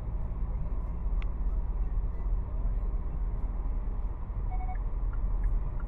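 Steady low road and tyre rumble of a 2023 Hyundai Tucson cruising at freeway speed, heard from inside the cabin, with a single faint click about a second in.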